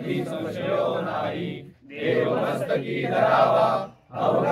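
A group of voices chanting a Marathi prayer together in phrases, with short pauses for breath about two seconds in and again near the end.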